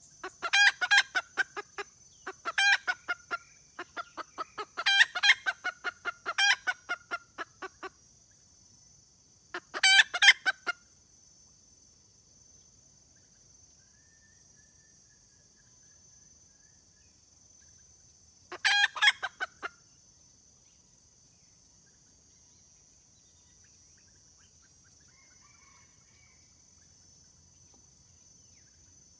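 Junglefowl hen giving rapid cackling 'kek-kek' calls, the call a hen uses to summon a male. The calls come in quick runs for the first eight seconds or so, then one short burst around ten seconds and another near nineteen, over a steady high insect buzz.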